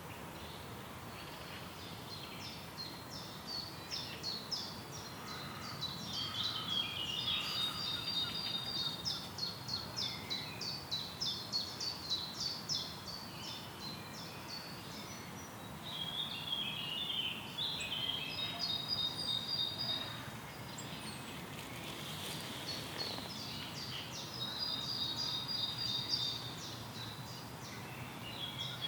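Songbirds singing in three bouts of rapid, repeated high notes over a steady outdoor hiss. The first bout runs about ten seconds, and two shorter bouts follow in the second half.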